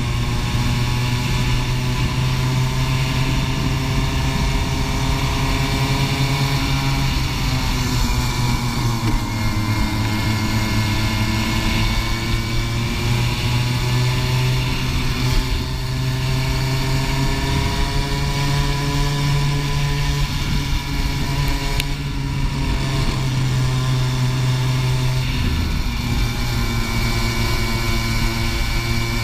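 Racing kart engine running hard at high revs, close to the microphone. The revs fall away about seven seconds in as it slows for a corner, climb again, and dip once more briefly near the end before rising.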